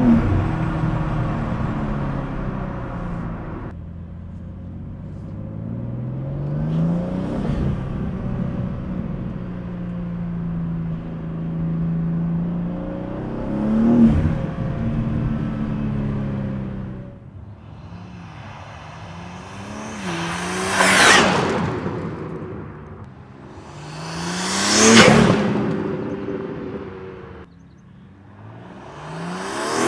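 BMW G87 M2's twin-turbo inline-six, fitted with open front-mount intakes, accelerating through the gears, heard from inside the cabin, its pitch climbing and dropping at each shift. In the second half it is heard from the roadside: three very loud swells about four seconds apart, the car rushing past.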